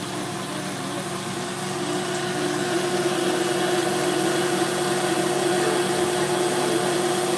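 KitchenAid Artisan stand mixer's motor running steadily with its wire whip beating egg whites into Italian meringue: a steady motor hum that grows louder about two seconds in.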